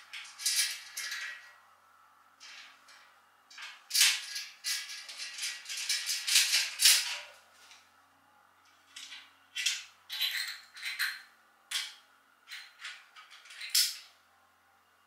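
Small cross-head screws and spring washers rattling in a plastic parts bag that rustles as a hand rummages through it, in irregular bursts with a few sharp clicks.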